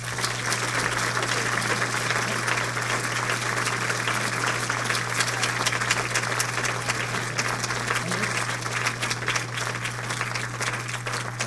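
Audience applauding steadily, a dense patter of clapping that thins a little near the end, over a steady low hum.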